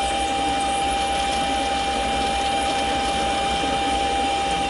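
Mini lathe running steadily while parting off a 1-1/4 inch 1018 steel rod with a blade held in a spring-type parting tool holder; a steady whine sits over the even running and cutting noise.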